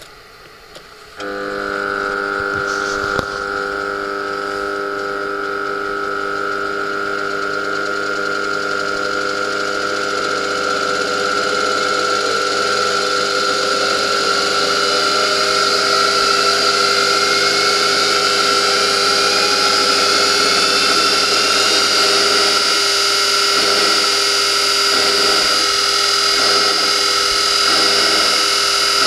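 A Buehler EcoMet 3 grinder-polisher's platen motor switches on about a second in and runs with a steady hum and whine, with a brief click shortly after. Its pitch then rises slowly over about ten seconds as the speed is turned up, and it settles into a steady, slightly louder run.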